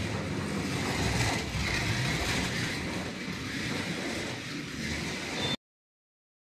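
NSR Formula 22 slot car, with its King 21 Evo 3 motor, running laps on a plastic slot track: a steady whirr of motor and rolling noise that swells and fades a little. It stops abruptly about five and a half seconds in.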